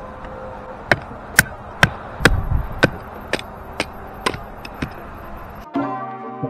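Batoning firewood: a length of wood strikes the spine of a SOG SEAL Pup fixed-blade knife, driving it down through a board, a run of sharp knocks about two a second. Near the end it cuts suddenly to music.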